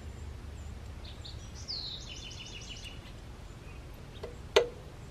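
A bird chirps and trills in the background. About four and a half seconds in there is a sharp metallic click, the loudest sound, with a fainter one just before it: a spark plug being tapped against a gap tool while its gap is closed to about 0.028 inch.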